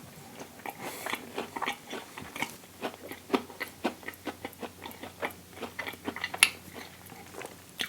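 Close-miked chewing of a vegan sausage and cheese English muffin sandwich: a run of short, irregular mouth clicks, a few each second.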